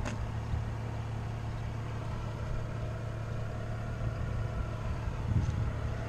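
A vehicle engine idling steadily with a low, even hum, most likely the towing pickup left running on the roadside.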